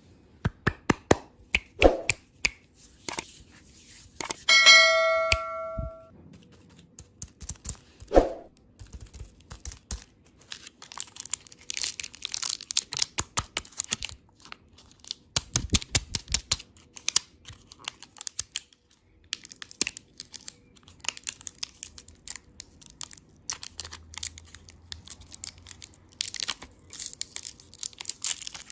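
Plastic candy-toy packaging being handled and torn open: crinkling and rustling with many sharp clicks. A short bell-like ding rings about five seconds in.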